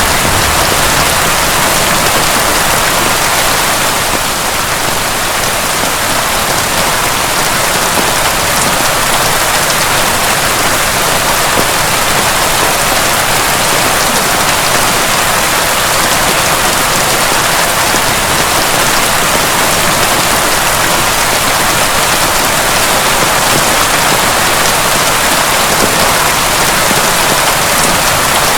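Heavy rain pouring steadily, a dense even hiss of drops with no thunder.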